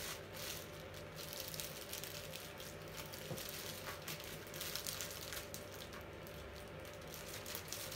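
Faint crinkling and rustling of the plastic wrap on an animatronic's head as it is handled and unwrapped, in scattered short bursts over a steady low hum.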